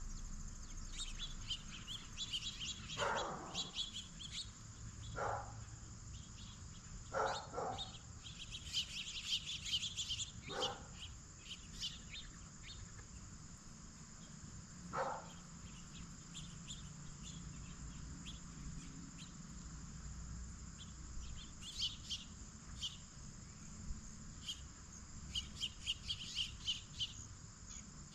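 Wild birds calling outdoors: many short, high chirps, in quick runs around the middle and near the end. About five short, louder, lower calls stand out in the first half.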